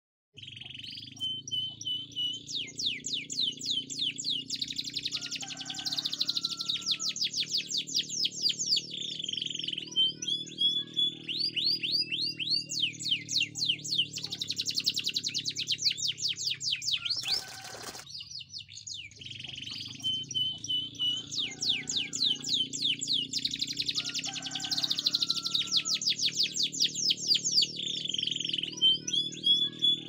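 Domestic canary singing long, fast trills and rapid runs of high chirps over a steady low drone. The song breaks off briefly about 17 seconds in, then starts again.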